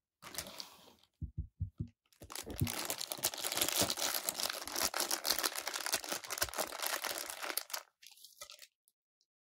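Clear plastic packaging bag rustling and crinkling as it is handled. A few soft low knocks come about a second in, then dense, continuous crinkling for about six seconds, tapering to a few smaller crinkles near the end.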